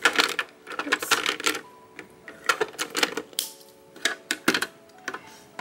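Plastic felt-tip markers clicking and clattering against one another and against a clear plastic drawer tray as they are handled and moved, in quick irregular clusters of clicks.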